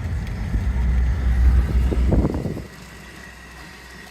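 A vehicle engine running with a low rumble, then falling away sharply about two and a half seconds in, after a brief rattle.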